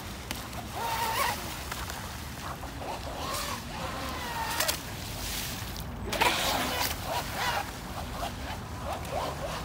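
Radio-controlled model boat running on a pond, its motor whining in short bursts that rise and fall in pitch with the throttle. Three louder rushes of spray and water come from the hull as it speeds past, the strongest about six seconds in.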